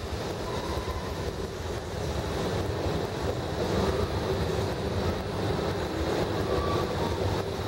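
Freight train's covered hopper cars rolling past, a steady rumble of steel wheels on rail that grows a little louder about two seconds in.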